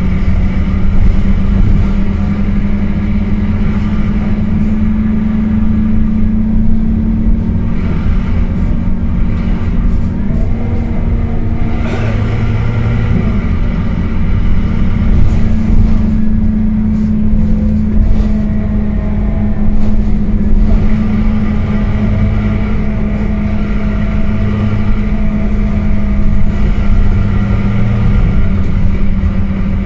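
Scania K230UB bus's rear-mounted diesel engine running, heard inside the passenger cabin. It holds a steady low drone, and its pitch climbs for a couple of seconds around the middle.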